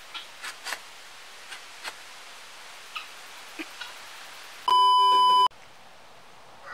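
A curved hand pruning saw rasping on a tree branch in a handful of scattered strokes, then a loud, steady electronic beep lasting just under a second, about two-thirds of the way through, that cuts off abruptly.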